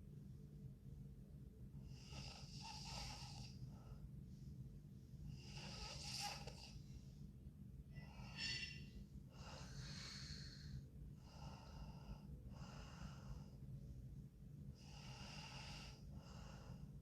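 A sleeping girl's soft, wheezy snoring breaths, about eight of them, each a second or less, coming every one to three seconds; one breath about halfway through carries a brief whistling tone. A steady low hum runs underneath.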